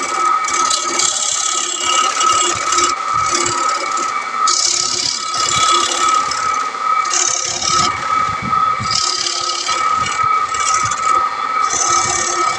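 Wood lathe running with a steady whine while a long-handled gouge cuts into a spinning wooden plate blank, the cutting coming as repeated scraping bursts a second or so long with short breaks.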